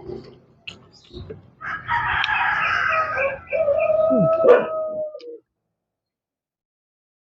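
A rooster crowing once, a long call of about three and a half seconds that cuts off abruptly, after a few small clicks.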